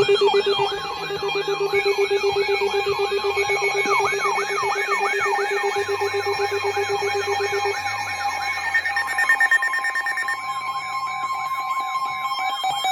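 Several emergency alert receivers sounding their alarms at once for a flood warning: overlapping warbling alarm tones sweeping up and down a few times a second over steady tones, with a low steady tone dropping out about eight seconds in.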